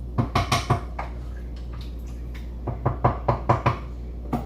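Two quick runs of sharp knocks, about five or six in each, a couple of seconds apart.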